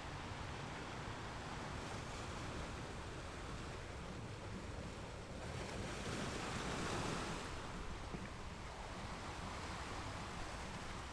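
Sea waves breaking on a rocky beach: a steady wash of surf, with one wave swelling and crashing about halfway through before the hiss ebbs away.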